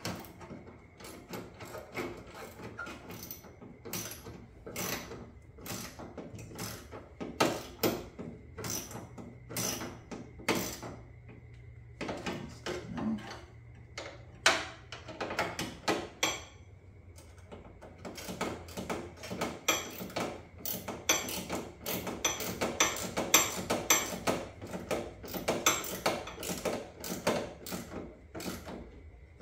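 Socket ratchet wrench with an extension clicking as bolts are tightened down, in several runs of rapid clicks with short pauses between.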